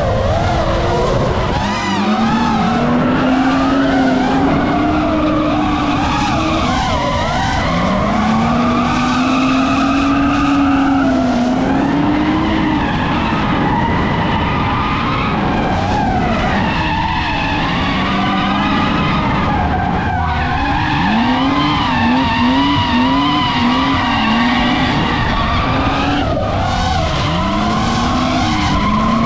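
BMW drift car's engine revving up and down through long slides, with its tyres screeching, and a quick run of short throttle blips about two-thirds of the way through.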